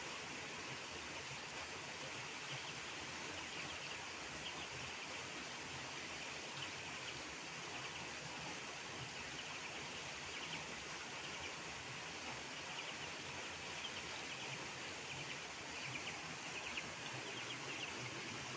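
Steady outdoor background hiss with faint, rapid high-pitched trills coming and going several times.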